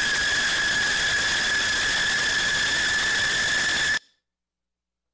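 Loud, harsh electronic tone from a sorting-algorithm visualizer running bogo sort: a steady high pitch with overtones over a hiss. It cuts off suddenly about four seconds in.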